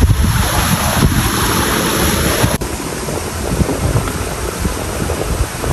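Water rushing through a concrete dam sluice in a steady spill. About two and a half seconds in it cuts off suddenly to wind buffeting the microphone.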